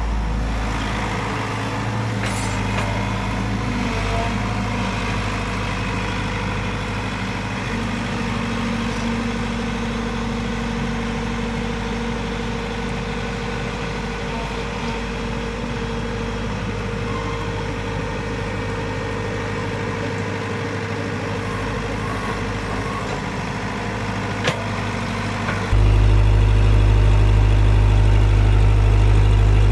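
Heavy machine engine running steadily at low revs, with one sharp click about 24 s in; about 26 s in the engine note jumps louder and deeper and stays there.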